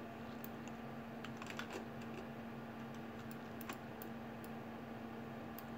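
Faint, scattered clicks from computer controls over a steady low hum.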